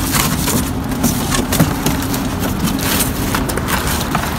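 Cardboard boxes being folded and flattened by hand, with irregular scraping and crackling of cardboard and crumpled paper packing, over a steady low engine rumble.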